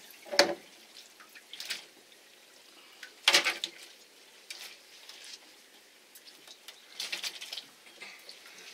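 Wet splashes and drips from a live fish just lifted from the live well, flapping and being handled in a dripping landing net on the deck. There are several short bursts, the loudest about three seconds in and another cluster near the end.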